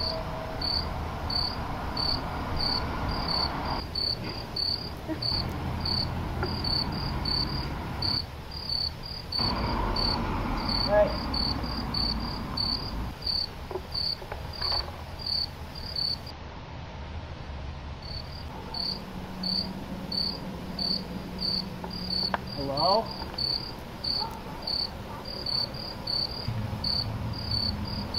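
Crickets chirping in a steady, even rhythm, about two to three chirps a second, over a low background rumble.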